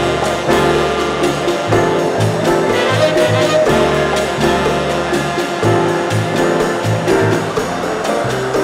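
Upbeat background music with a steady bass beat.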